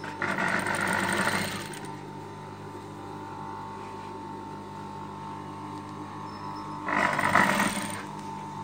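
Electric sewing machine stitching in two short runs, one of about a second and a half near the start and one of about a second near the end, over a steady hum.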